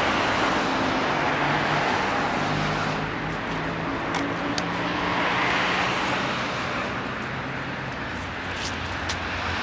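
Steady motor-vehicle and road traffic noise with an engine hum underneath, plus a few light clicks and rattles of plastic bottles being picked up and handled.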